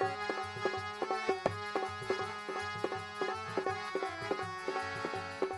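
Instrumental passage of a Punjabi devotional song: a harmonium playing a melody in held notes over a steady beat on a dholak hand drum.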